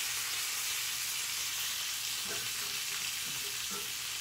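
Turkey wings sizzling steadily as they brown in a hot cast-iron skillet.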